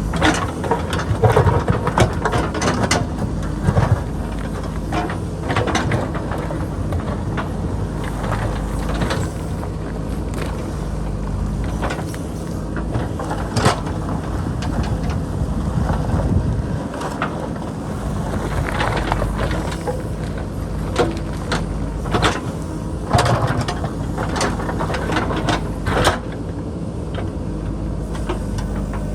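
JCB backhoe loader's diesel engine running steadily under load, with irregular clanks and clatter of the steel bucket striking and scraping rock. The clanking stops near the end and the engine runs on.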